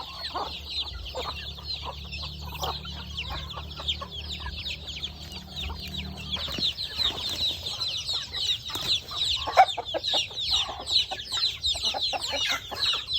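A flock of chickens calling: dense, continuous high-pitched peeping, with a few lower clucks about two-thirds of the way through. A low hum stops about halfway.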